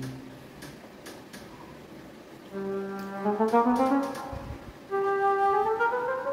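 Background instrumental music: a melody of held notes with rising slides between them, coming in about two and a half seconds in after a few faint taps.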